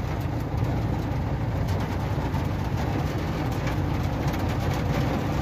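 Hail and rain pelting a vehicle's roof and windscreen, heard from inside the cab as a dense, steady low rumble with scattered sharp ticks of hailstones striking.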